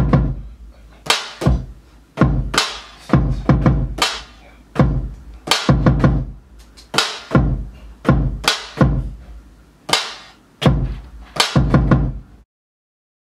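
Drum beat played from a pad controller: punchy kicks with a deep bass boom under them and sharp snare-like hits in a repeating pattern. It cuts off abruptly near the end.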